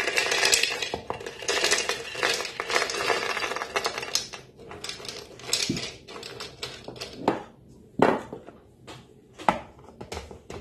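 Whole blanched almonds pouring from a glass dish and rattling into a food chopper's bowl for about four seconds, then a few separate clicks and knocks as the almonds are pushed about and the chopper's motor top is set onto the bowl.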